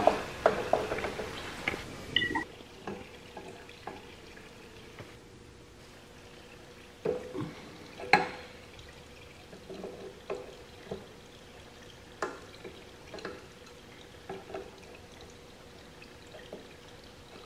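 Oil dripping and trickling from a tractor housing into a container below, with scattered metal clicks and knocks from an adjustable wrench working a nut, the sharpest about eight seconds in.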